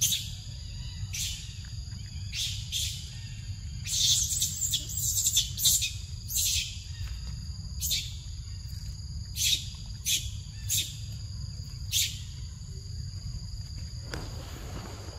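Birds chirping: short, high chirps repeating every half second to a second, over a steady high insect drone and a low rumble. Near the end comes a brief rustle.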